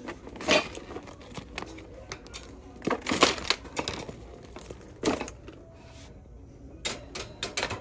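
Handbags and a heavy marble board being shifted around in a shopping cart, with a few sharp clinks and knocks against the cart amid handling rustle; the loudest knock comes about three seconds in.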